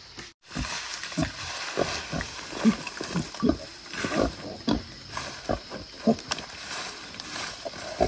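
Wild boar grunting in short, repeated low grunts, about two a second, with dry brush rustling faintly.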